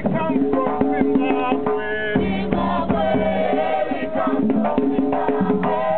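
Live group music: voices singing held notes and a wavering melody over fast, dense hand percussion of drums and rattles.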